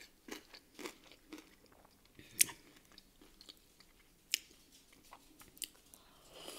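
A person chewing and eating a chicken tender folded in soft bread and dipped in sauce, with wet mouth clicks and smacks. A sharp click about two and a half seconds in is the loudest, with another just past four seconds, and a bite into the sandwich near the end.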